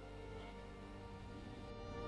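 Soft background music with sustained, held notes.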